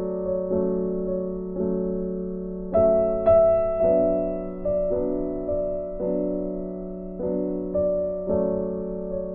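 Background music: a slow, gentle piano piece, with notes and chords struck about once a second and left to fade.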